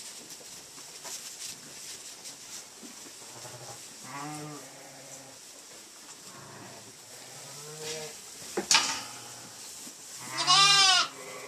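Ewes and lambs bleating: a few short, low bleats, then one loud, higher-pitched bleat near the end. A sharp knock comes just before the loud bleat.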